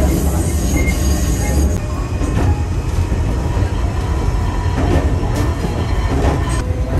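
Electric train running on its rails: a steady low rumble, with a brief high wheel squeal about a second in and a few sharp clicks later on.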